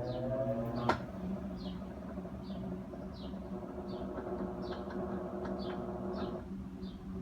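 Maytag Centennial top-load washer in its test cycle: a rising whine ends with a sharp click about a second in as the machine clicks over toward spin, then its motor runs with a steady hum.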